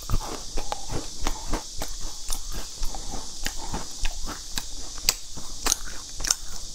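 Close-miked chewing of a soft sesame-coated cake: an irregular string of wet mouth clicks and smacks, several a second, with a steady hiss behind.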